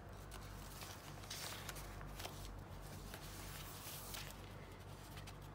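Faint, soft rustling of paper as a handmade junk journal's card is handled and its pages turned, over a low steady hum.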